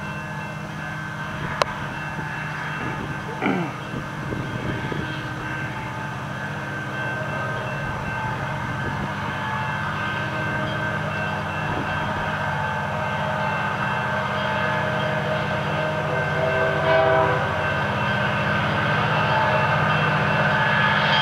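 Two EMD SD40-2 diesel locomotives, turbocharged 16-cylinder engines, leading an approaching freight train: a steady engine drone that grows gradually louder as the train nears. A single sharp click sounds about a second and a half in.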